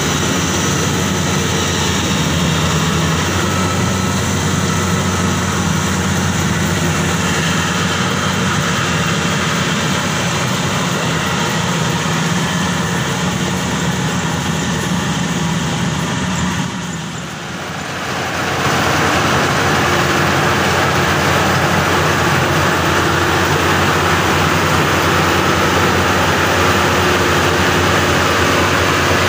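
Maxxi Bimo Xtreme 2.0 L rice combine harvester running steadily while cutting and threshing rice. Its engine and threshing machinery make a continuous din, which dips briefly a little over halfway through and then comes back with more hiss.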